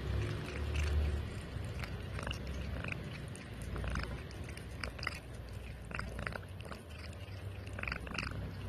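A cat eating, chewing its food with many short, irregular crunching clicks.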